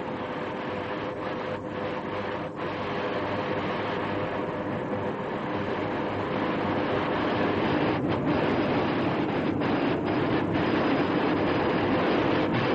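Steady rumbling, hissing noise of glass-working factory machinery, with a faint steady hum, slowly growing louder.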